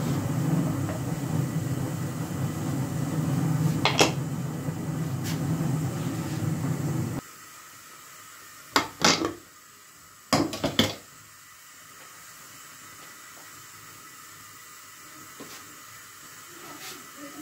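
Aluminium pressure cooker lid being worked and lifted off: sharp metal clanks and clatter, in two short clusters about nine and ten and a half seconds in. Before that, a steady low rumbling noise with a single click about four seconds in, which cuts off suddenly about seven seconds in.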